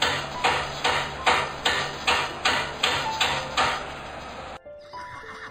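Steady rhythmic knocking, about two and a half strikes a second, over music, stopping abruptly about four and a half seconds in.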